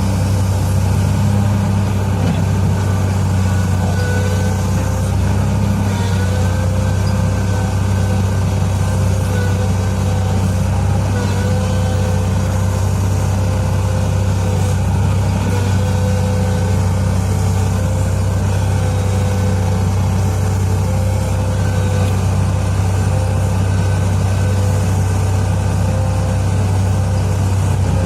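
Heavy diesel engines of mining machinery running steadily, with a deep constant hum and a faint wavering whine above it.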